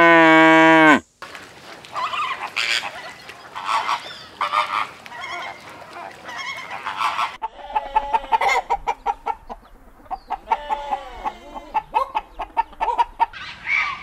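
A cow's loud moo that cuts off about a second in, followed by a long run of poultry calls, honks and clucks in short bursts.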